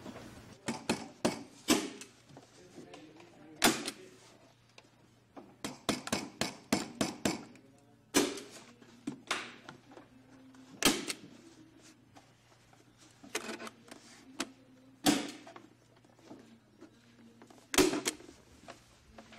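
Staple gun driving staples into cedar strips on a kayak form: sharp snaps at irregular intervals, some coming in quick runs of several, others one at a time a second or two apart.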